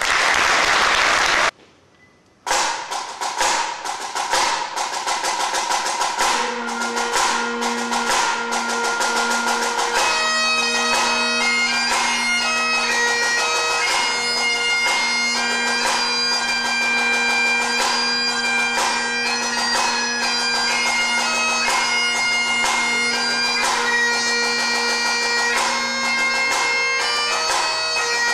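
Bagpipes playing with snare drums. A short loud burst at the very start is followed by a moment of near silence, then the drums start, and about six seconds in the steady pipe drones strike up with the chanter melody over them.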